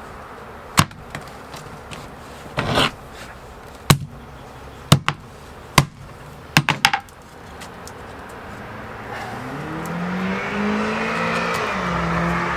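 A 6-pound sledgehammer striking a thick wad of folded paper with sharp blows, about eight in the first seven seconds, one slightly longer and scraping. From about nine seconds on, a motor vehicle engine rises in pitch and grows louder in the background.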